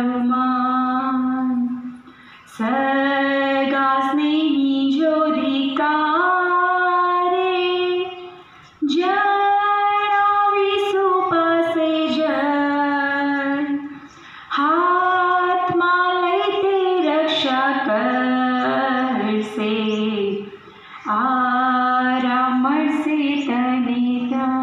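A girl singing a prayer song solo and unaccompanied, in long held notes grouped into phrases with short pauses for breath about every six seconds.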